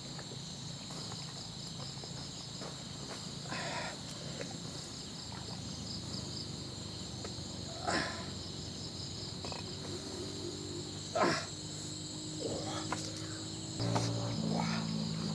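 Insects chirring steadily in the background, with a few short scrapes of a machete blade against a turtle shell in a pot of hot water. The loudest scrape comes about eleven seconds in.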